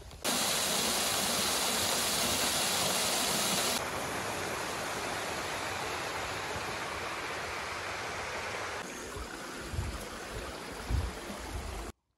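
Running water of a stream, a steady loud rushing hiss. It changes abruptly about four and nine seconds in, with a few low thuds near the end, then cuts off suddenly.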